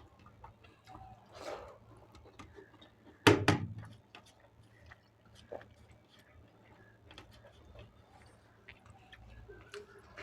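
Faint eating sounds from a meal of dal and rice: soft chewing and small mouth clicks. A sharp double knock about three seconds in is the loudest thing.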